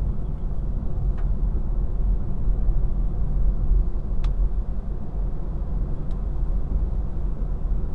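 Steady low rumble of a car's engine and tyres on a wet road, heard from inside the moving car's cabin, with three faint ticks.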